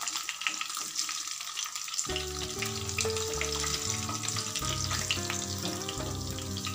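Pomfret fish frying in shallow hot oil in a non-stick wok, a steady sizzle full of fine crackles, while a wooden spatula moves the fish in the pan to lift them out. Soft background music comes in about two seconds in.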